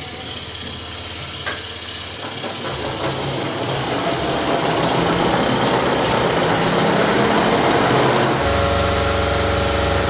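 Spin-dryer tub of a Von twin-tub washing machine spinning up: a motor hum and the rush of water being flung from the clothes and drained off grow louder over several seconds, then settle into a steady hum about eight and a half seconds in.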